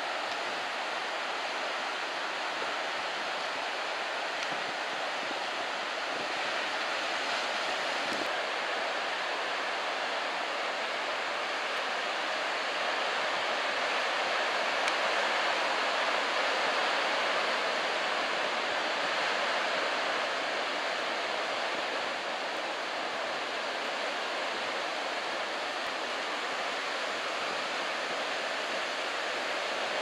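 Ocean surf breaking and washing on a sandy beach, a steady rushing that grows a little louder around the middle and then eases.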